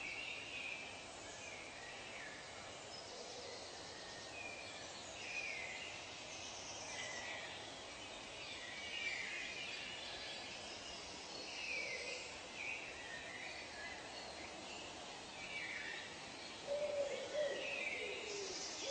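Birds calling in a forest soundscape: short, mostly falling chirps every second or so over a steady background hiss, with lower-pitched calls coming in near the end.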